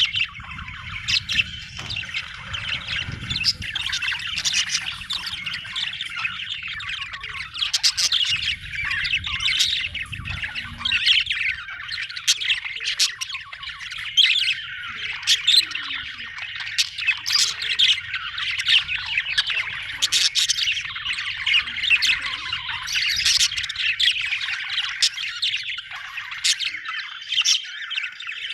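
Budgerigars chirping and warbling in a steady, dense chatter, with many short sharp squawks. A low rumble runs underneath for most of the first twenty seconds.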